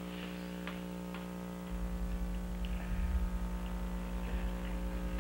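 Steady electrical mains hum on the soundtrack, with a few faint ticks at first; a deeper, slightly pulsing hum joins it about two seconds in.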